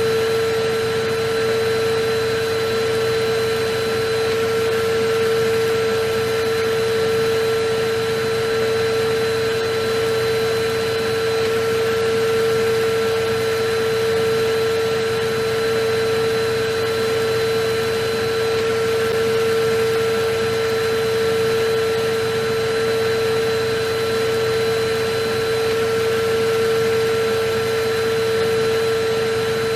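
Vacuum cleaner running steadily: an even rush of air with a constant mid-pitched motor whine that never changes.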